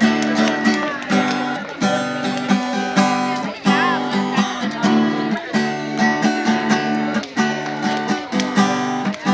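Acoustic guitar strummed in a steady rhythm, chords restruck several times a second.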